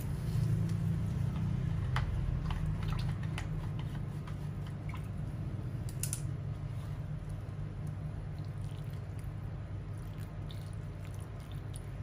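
Small scattered clicks and taps from a pink plastic jug of fungicide-and-water mix being handled on a tiled floor, one sharper click about six seconds in, with a little liquid sound. A steady low rumble underlies it all.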